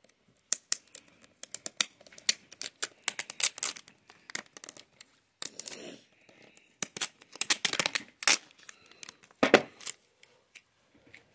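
Fingernails picking and scratching at an adhesive security sticker on a plastic DVD case, with irregular clicks and short crackling rips as the sticker tears away from the case's edge. A louder knock near the end as the case is set down on the wooden table.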